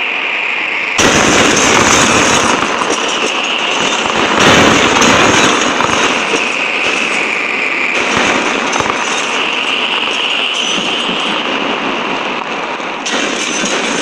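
Loud storm wind rushing and crackling, with a wavering high whistle running through it; it jumps louder about a second in and eases near the end.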